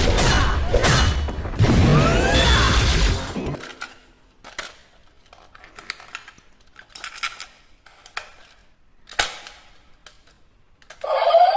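Loud electronic sound effects with gliding tones for the first three seconds or so, then cut off. After that, sparse small plastic clicks and rattles from toy handling.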